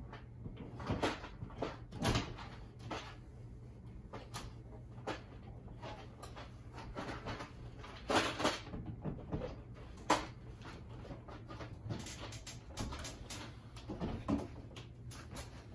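Metal TV wall-mount brackets knocking, scraping and clicking against the wall plate as a flat-screen TV is hooked on and shifted into place, with a handful of sharp knocks, the loudest about 2 and 8 seconds in.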